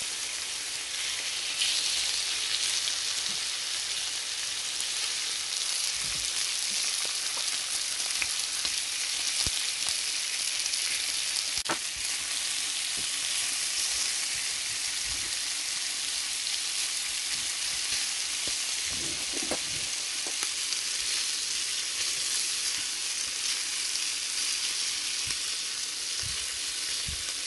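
Chicken thigh strips and pork shoulder slices sizzling steadily in hot olive oil in a cast-iron grill pan on high heat. A few light clicks of a fork and tongs against the pan as the pieces are turned.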